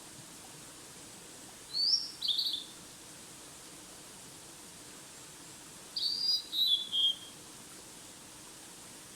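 A wild songbird calling twice: a short two-note chirp about two seconds in, then a longer phrase of three or four notes that step down in pitch about six seconds in, over a steady background hiss.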